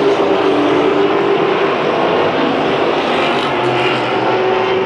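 Engines of a pack of short-track race trucks running together at speed, a loud steady drone of several engines held at a near-constant pitch.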